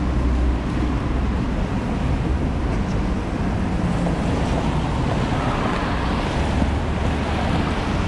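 Rainy city street ambience: steady rain hiss on wet pavement mixed with the low rumble and tyre hiss of traffic on a wet road. The hiss grows thicker about five seconds in.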